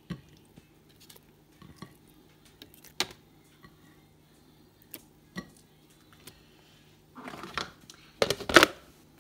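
A metal spoon tapping and scraping against a plastic food processor bowl as roasted red peppers and chili are spooned in, with scattered sharp clicks over a faint steady hum. Louder clattering of the bowl comes near the end.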